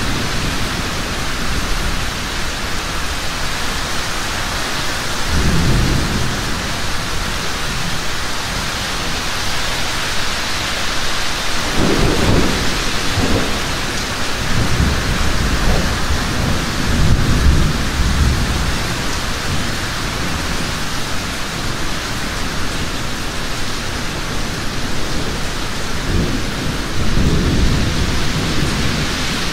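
Heavy rain falling steadily, with low rolls of thunder rumbling several times: a few seconds in, twice around the middle, and again near the end.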